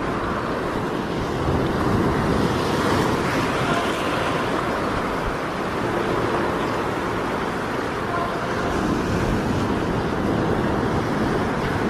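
Sea surf surging and washing over rocks: a steady rushing noise that swells a little about two seconds in.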